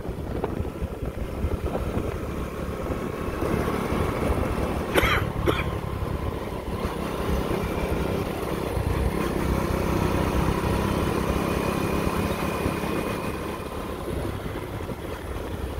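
Motorbike running at steady cruising speed on a paved road, with a continuous low rumble of engine and road noise and faint steady engine tones. A short sharp sound cuts through about five seconds in.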